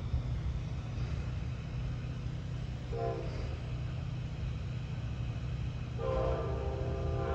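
Amtrak P42 diesel locomotive's horn sounding for a grade crossing: a short blast about three seconds in, then a longer blast from about six seconds that runs past the end. A steady low rumble of the approaching train runs underneath.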